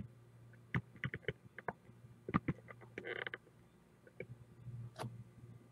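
Scattered light clicks and knocks at irregular intervals, with a brief rustle about three seconds in.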